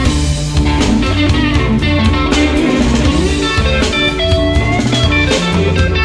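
Blues-rock instrumental music: a guitar playing a lead line with bent notes over bass and a steady drum kit beat.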